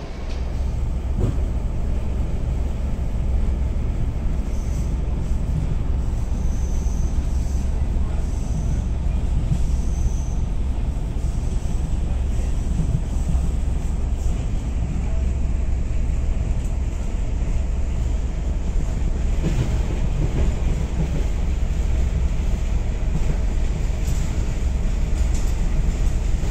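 Steady low rumble of a moving passenger train heard from inside the carriage, with a few faint, short high squeaks about a quarter to a third of the way in.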